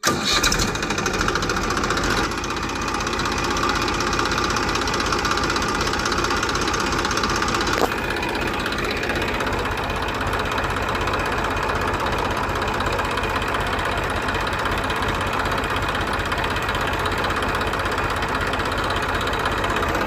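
Small engine of a DIY mini tractor running steadily, with a fast, even knocking beat.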